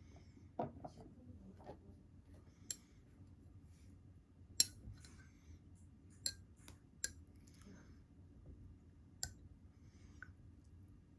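Eating utensils clinking against dishes, about six separate sharp clinks spaced a second or two apart, the loudest near the middle.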